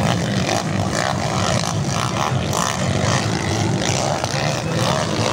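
Motocross dirt bikes racing on the track, their engines blending into a steady drone.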